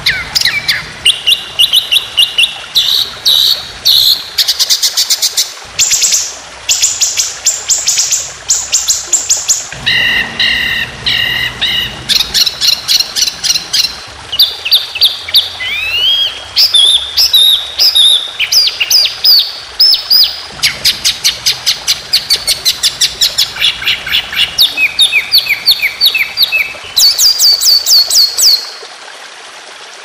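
Songbird song in rapid-fire trills: fast runs of identical sharp notes at one pitch, each run jumping to a new pitch every second or so, with one rising whistle about halfway through. This is the long 'tembakan' trilling used in Indonesian songbird-training recordings. The song stops shortly before the end, leaving a faint steady hiss.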